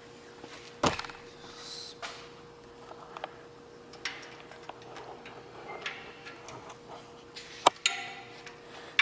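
Scattered clicks, clinks and knocks of metal tools and engine parts being handled, with two sharper knocks, one about a second in and one near the end. A faint steady hum runs underneath.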